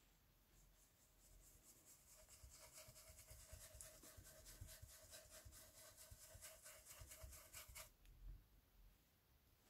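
Faint, quick rubbing of a small make-up brush working distress ink through a plastic stencil onto watercolour paper, several even strokes a second. It starts about a second in and stops near eight seconds.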